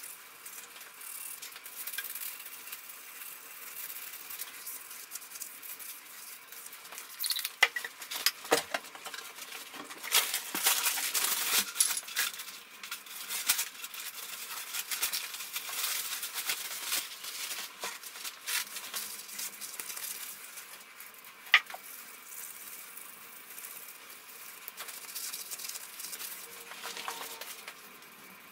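Abrasive pad scrubbing surface rust off the bare cast-iron face of a milling machine's tilting angle table, a dry rasping rub in uneven strokes that is heaviest about ten seconds in. A few sharp clicks and knocks come in between.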